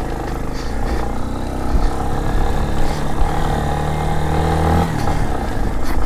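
Yamaha XTZ 250 Lander's single-cylinder four-stroke engine pulling under throttle on a dirt road. Its pitch climbs steadily for a few seconds, then drops suddenly about five seconds in.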